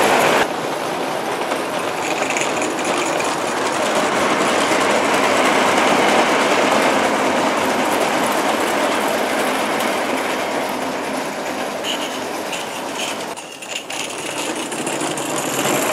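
Bassett-Lowke O gauge live-steam Enterprise locomotive and its tinplate coaches running on tinplate track: a steady rattling clatter of wheels on the rails, briefly quieter near the end.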